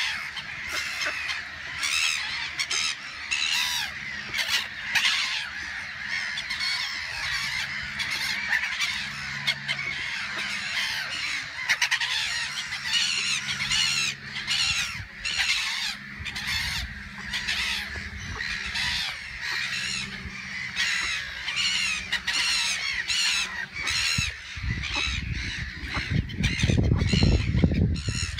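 Ducklings peeping continuously, many short high calls overlapping, with a low rumble building near the end.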